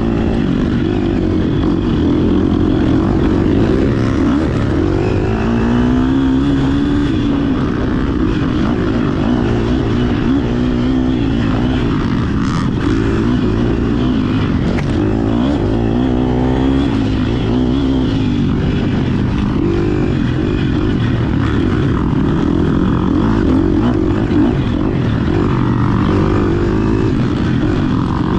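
GasGas EX 250F dirt bike's single-cylinder four-stroke engine running hard under load, revving up and down as the rider works the throttle and gears.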